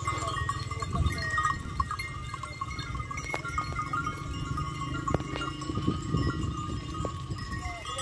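A flock of sheep and goats on the move, with livestock bells clinking and jangling and an occasional bleat.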